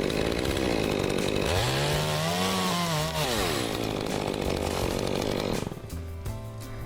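Chainsaw running, revving up and easing back down once, its pitch rising then falling. The saw sound drops away near the end.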